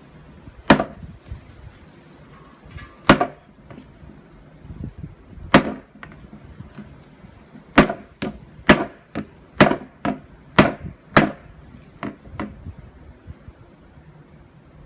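Hammer blows on a sealed, liquid-filled part of an ice cream maker being knocked apart for scrap. About a dozen sharp strikes, three spaced a few seconds apart, then a quicker run of about two a second.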